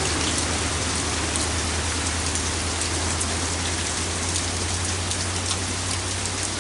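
Heavy downpour of rain falling on a wooden deck: a steady hiss with scattered nearer drops and a low, even rumble underneath.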